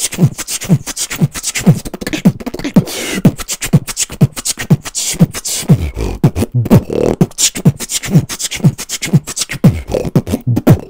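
Vocal beatboxing: a fast, dense beat of mouth-made clicks and hissy hi-hat sounds, with low bass kicks that drop in pitch two or three times a second.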